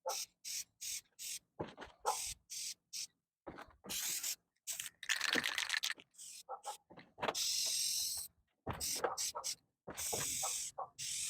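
Aerosol spray can of white paint hissing in many short bursts, with two longer sprays in the second half, as a coat of paint goes onto a truck body panel. A dog barks a few times in the background.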